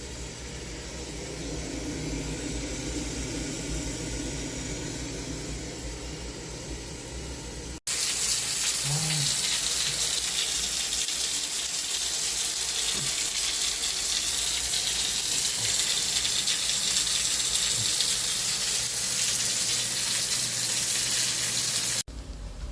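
Water running from a tap. About eight seconds in it changes abruptly to a louder, hissing rush of water that stops suddenly near the end.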